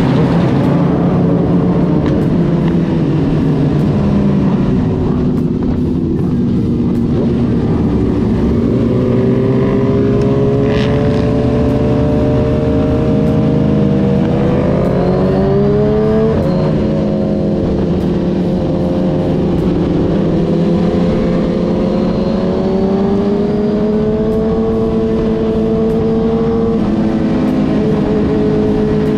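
Motorcycle engines running steadily on the move, with a low rumble underneath. One engine climbs in pitch as it accelerates and drops sharply at a gear change about sixteen seconds in.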